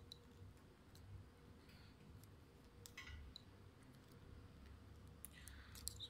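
Faint, scattered light clicks of metal crimp terminals and their wires being pulled one by one out of a plastic wiring-harness connector by hand.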